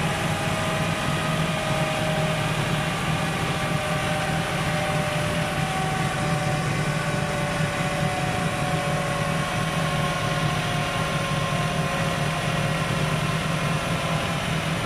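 Dynojet chassis dyno roller and quad bike drivetrain coasting down after a power run, with the clutch pulled in: a whine that falls slowly and evenly in pitch. The quad's engine idles steadily underneath.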